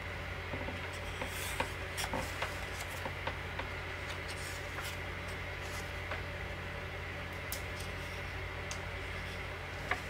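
Pages of a hardcover book being turned and handled by hand: soft paper rustles and small taps, mostly in the first few seconds, with one sharper tap near the end, over a steady low hum.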